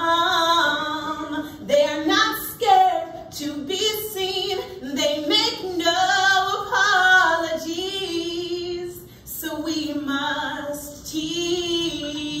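A woman singing solo, holding long notes with vibrato.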